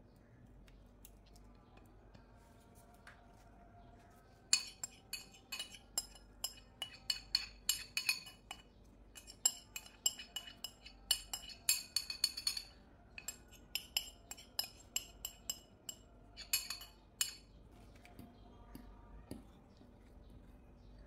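Metal spoon clinking and scraping against glass mixing bowls: a dense run of sharp, ringing taps that starts about four seconds in and stops a few seconds before the end, as the batter is scraped out of the bowl.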